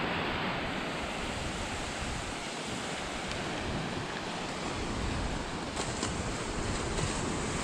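Small surf breaking and washing along a shallow beach, with wind buffeting the microphone.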